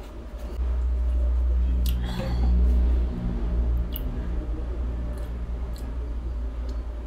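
Close-miked mouth sounds of a mouthful of water being held, swished and swallowed, over a low rumble that swells in the first few seconds and then eases.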